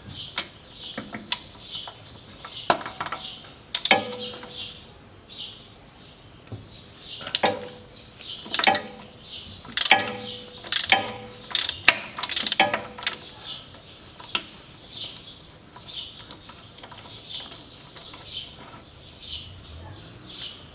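A socket ratchet with an extension clinking against the steel rear axle housing at the open fill hole. There are a dozen or so sharp metallic taps, several with a short ring, mostly in the first two-thirds. Birds chirp steadily in the background.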